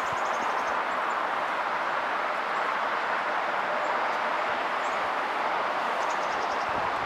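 Steady rushing ambient noise throughout, with two faint quick series of high-pitched ticks, one just after the start and one about six seconds in.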